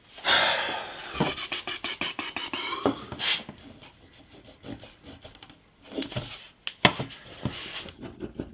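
Chisel scraping and paring excess veneer off the edge of a guitar body top: a loud rasping scrape in the first second, then softer scrapes, and several sharp ticks in the last few seconds.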